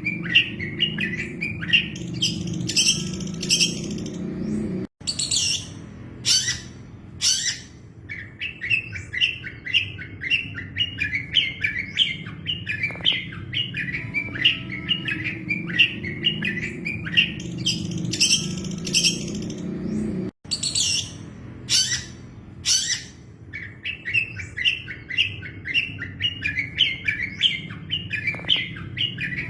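Long-tailed shrike (cendet) singing: fast runs of high chirps mixed with harsher, scratchier calls, over a steady low hum. The same recorded passage loops twice, with a brief dropout before each repeat.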